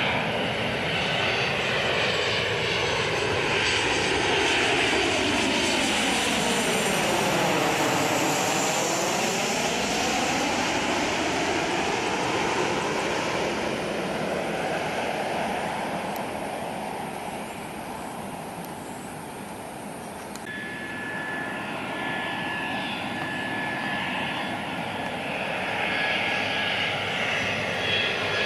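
Boeing 737-900ER's CFM56 jet engines on landing approach passing low overhead: loud at first, with a sweeping, phasing whoosh as it goes over, then fading. About two-thirds in, an abrupt change to an Airbus A320 on approach, its jet engines with a steady high whine, growing louder near the end.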